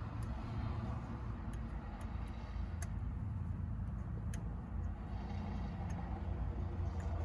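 A few scattered sharp clicks of hand tools and metal parts being handled while the steering hub bolts are tightened, over a steady low rumble.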